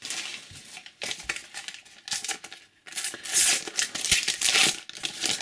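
A Panini FIFA 365 sticker packet being torn open and its wrapper crinkled by hand, in several rustling bursts that are loudest from about three seconds in.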